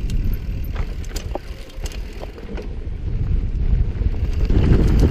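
Wind buffeting the microphone of a camera moving fast along a dirt trail, a steady low rumble that eases in the middle and builds again near the end. Several sharp clicks and rattles from the ride over rough ground fall in the first half and again near the end.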